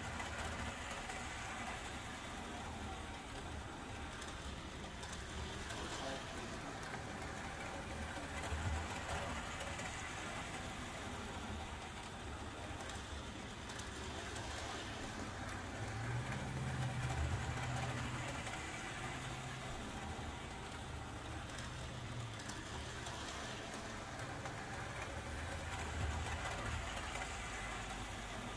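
Model steam locomotive running laps on a small circle of track, its motor and wheels making a low rumble that swells about every eight to nine seconds over a steady background hiss.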